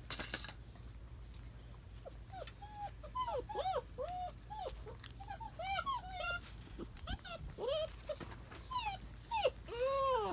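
Young German Shepherd puppies whining and yelping while play-fighting. A quick string of short, high cries, each rising and falling, starts a couple of seconds in, with the loudest ones near the end.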